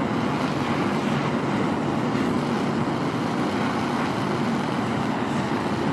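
Steady rushing roar without breaks from the heat source running while a steel punch is tempered, its colours at a slight purple.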